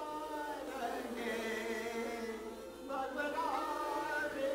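A group of kazoos buzzing a tune together, held notes moving from pitch to pitch, with a short break about three seconds in.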